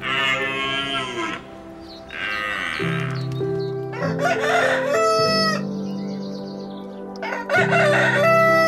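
Rooster crowing twice, about four seconds in and again near the end, the second crow the louder. Steady background music plays underneath.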